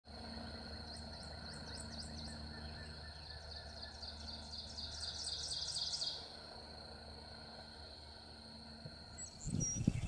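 Prothonotary warbler singing: two runs of quick, evenly repeated high notes, the second run longer and louder, over a steady high tone and a low hum. A few low thumps near the end.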